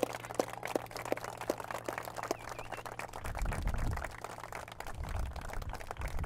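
Wedding guests clapping: a dense patter of claps.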